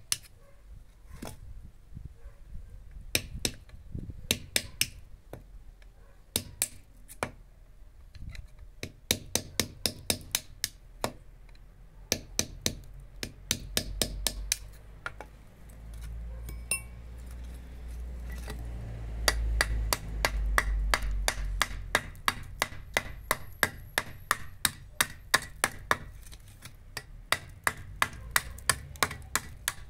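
Club hammer tapping a small steel chisel into a hollow clay brick, in runs of quick, sharp metal-on-metal knocks, scoring a cutting line. Near the end the edge of a mason's trowel chops at the scored brick with similar short knocks.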